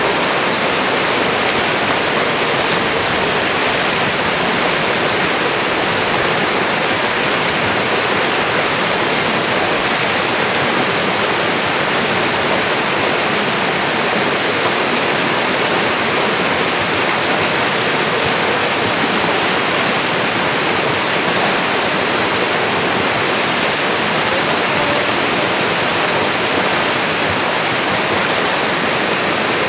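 Stream water rushing, a steady, even noise of flowing water with no change throughout.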